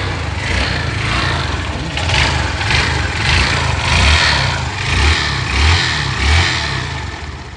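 150 cc motorcycle engine running and revved in repeated swells, with a harsh mechanical noise from inside, like it is "breaking everything inside". The mechanic puts the noise down to a blown primary shaft bearing in the gearbox. The sound eases off near the end.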